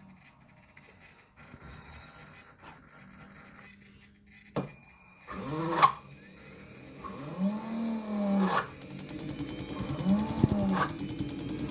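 JetCat model turbine engine in its start sequence: the electric starter spins the rotor up and lets it wind down again in repeated pulses, each a rising then falling whine about a second long, starting about halfway in. Sharp clicks come between the pulses, and a thin steady high whine runs from a few seconds in.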